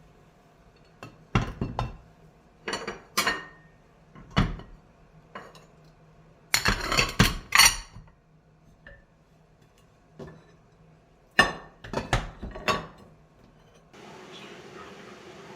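Kitchenware being handled: separate knocks and clinks of pots, dishes and utensils, with a quick run of rattling clinks about halfway through. Near the end the knocks give way to a steady hiss.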